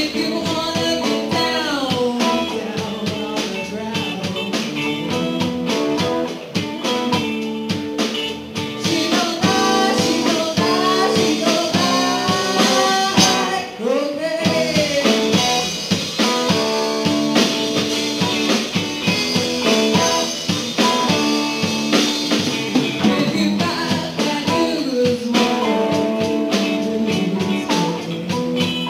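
A live band playing amplified electric guitars, with a singer on a microphone.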